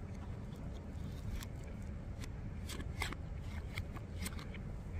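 Plastic fork scraping and clicking against a black plastic takeout tray while gathering spaghetti, a series of light, irregular clicks.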